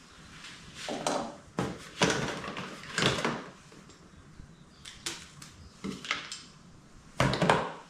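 Handling noises as small woodworking tools and their packaging are taken out of a box: a series of short rustles and scrapes, the loudest near the end.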